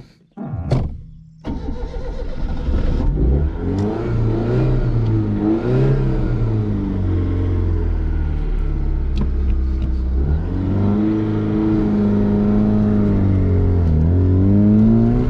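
Yugo's four-cylinder engine started from bare ignition wires under the dashboard, catching about a second and a half in. The car then pulls away and accelerates on a gravel road, the engine pitch rising and dropping back at each gear change.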